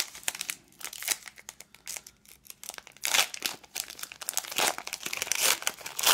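Foil Pokémon card booster pack wrapper crinkling and being torn open by hand. Sparse crackles at first, then a denser, louder run of crinkling from about three seconds in.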